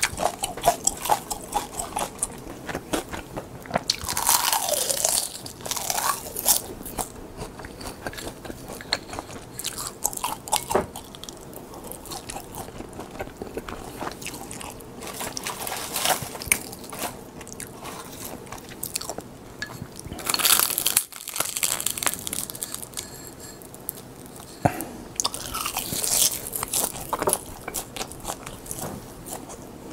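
Close-miked crunching and chewing of crisp seasoned laver (gim) sheets, bite after bite of short crackly snaps. There are three louder, longer crackling bursts: about four seconds in, past the middle, and near the end.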